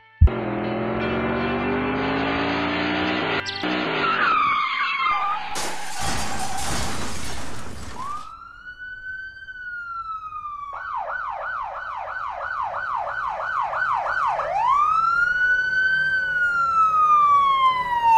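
An engine revving up, a short screech and a couple of seconds of crash noise, then an emergency-vehicle siren: one long rising and falling wail, a fast yelp of about three sweeps a second, then another long wail.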